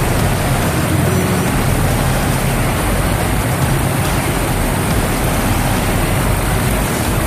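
Steady, loud rush of water running through a concrete storm-sewer tunnel, a constant even noise with no breaks.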